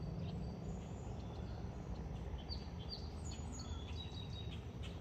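Steady low rumble of a jet airliner passing high overhead, with small birds chirping several times in the middle.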